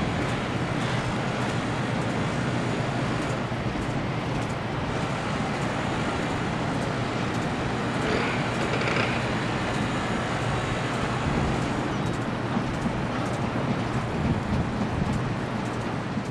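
Steady low rumble of city traffic and machinery, with no distinct events; it cuts off suddenly near the end.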